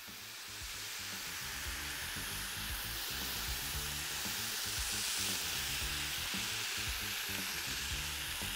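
Calamari and peppers sizzling on a hot metal fajita platter as a utensil stirs through them: a steady hiss that swells a little midway. Faint background music plays underneath.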